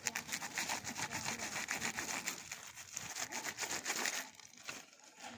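Rapid scratchy rubbing and crackling of product packaging being handled or cut open, stopping about four seconds in.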